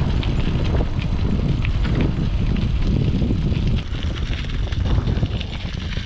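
Wind buffeting the microphone of a camera on a moving bicycle, a steady rumbling roar, with faint scattered clicks from the tyres rolling over the rail-trail surface.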